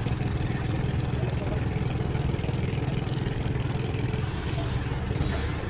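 Engine running steadily at idle, with two short bursts of hissing near the end.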